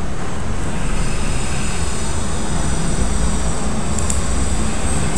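Steady background noise with no speech: an even low rumble with a hiss above it.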